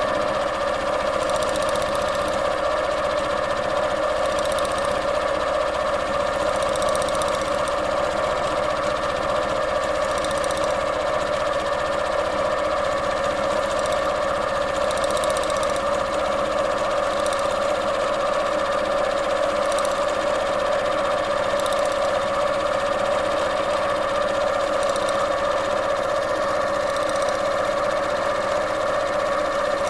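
Sewing machine running steadily through free-motion quilting, its needle stitching through the layered quilt top, batting and backing as the fabric is guided by hand.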